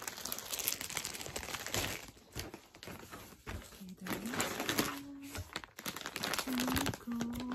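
Clear plastic packaging bags crinkling and rustling as plush toys are handled and pulled out of a cardboard box, in a dense run of quick crackles.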